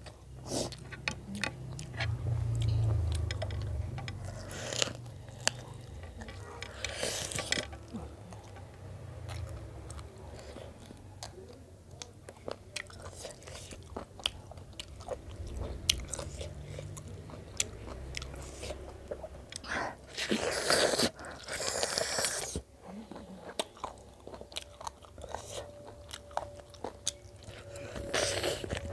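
Close-miked chewing and biting on tough, bony pieces of local chicken, with many small crunching clicks. There are a few louder bursts about a quarter of the way in, around two-thirds in and near the end.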